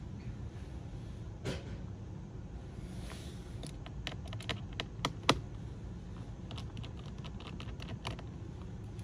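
Small scattered clicks and taps of hands and a small tool working on the parts inside an open Lenovo ThinkPad X1 Carbon Gen 9 laptop, the sharpest click about five seconds in, over a low steady hum.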